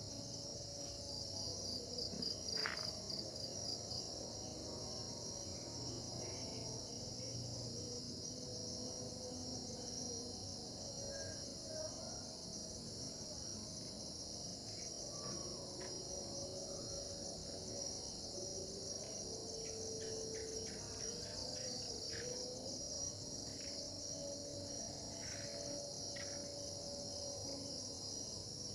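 A steady, high-pitched chorus of insects shrilling without a break, with a pulsing trill over it for the first few seconds. Faint, drawn-out lower tones come and go beneath it.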